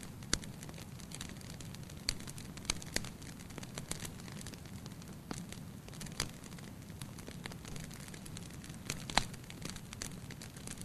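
Wood fire burning in a fireplace, a steady low hiss and rumble with irregular sharp crackles and pops, the loudest pop about nine seconds in.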